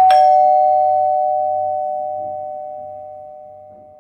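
Doorbell-style ding-dong chime used as a sound effect: a higher note struck with a lower note right after it, both ringing on and fading slowly over about four seconds.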